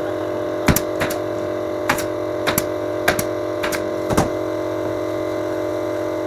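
Staple gun firing staples into a motorcycle seat cover: about nine sharp shots at irregular spacing over some four seconds, then they stop, over a steady hum.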